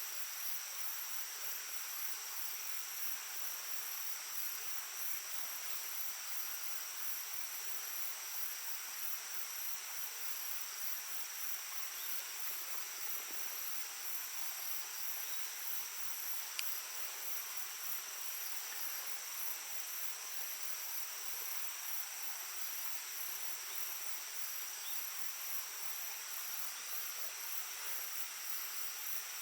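Shallow stream babbling steadily, with insects chirring continuously at a high pitch over the water, their song pulsing rapidly. A single sharp click a little past halfway.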